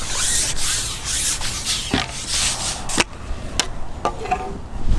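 Close rubbing and scraping of handled fishing tackle, in bursts for the first few seconds, with sharp clicks about two and three seconds in.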